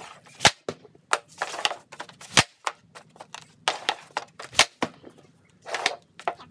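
Hockey stick blade scraping a puck across a shooting pad, then a sharp crack as the puck is shot, repeated three times about two seconds apart, with another scrape near the end.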